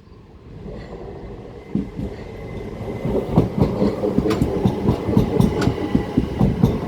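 Four-car Class 377 Electrostar electric multiple unit approaching and running through the station. It grows louder, and from about three seconds in its wheels clatter rapidly over the rail joints.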